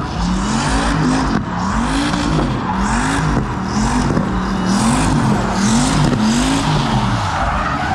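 A drift car's engine revving up and falling back again and again, about once a second, as the driver works the throttle through a slide, with tyre screech over it.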